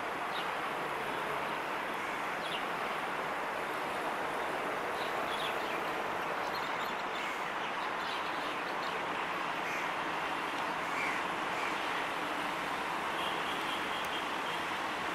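A steady, even wash of distant diesel locomotive and outdoor noise as an EMD GT18LA-2 diesel-electric locomotive approaches a long way off hauling a passenger train, with short bird chirps scattered over it.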